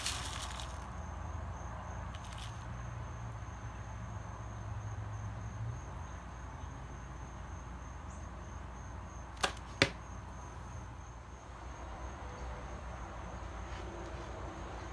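Clumping clay cat litter rustling and grating in a plastic slotted scoop for about the first second, then only a low steady hum with a faint steady high-pitched tone. Two sharp clicks, close together, come about ten seconds in.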